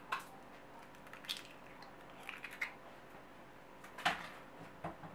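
Light clicks and knocks of an egg being cracked into a bowl and kitchen things handled, spaced out over a few seconds, the loudest knock about four seconds in.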